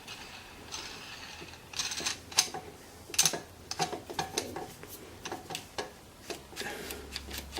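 Irregular clicks and light knocks of a clamp with wooden extensions being fitted and tightened.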